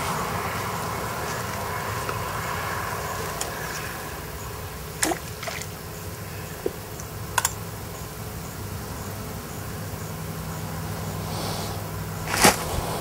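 Outdoor ambience with a steady low hum and a distant drone that fades out over the first few seconds. A few sharp, isolated clicks come through the middle, and a louder one near the end.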